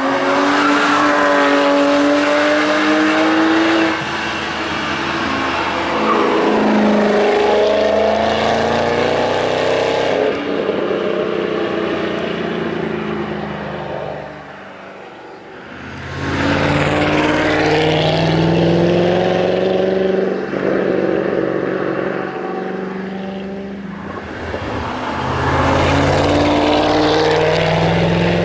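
Ford Mustang Shelby GT500's V8 accelerating hard on a race track in several separate passes, its exhaust note rising in pitch through each run, with a quieter lull about halfway through.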